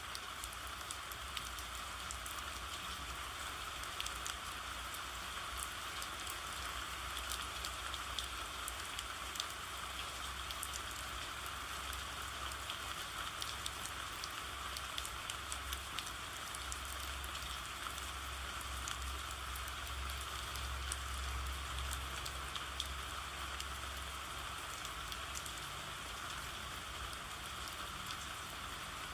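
Steady rain falling, an even hiss with many scattered drop ticks, over a low rumble that swells in the middle.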